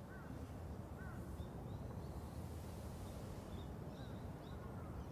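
Outdoor ambience: a steady low rumble with small birds giving short, repeated chirps throughout.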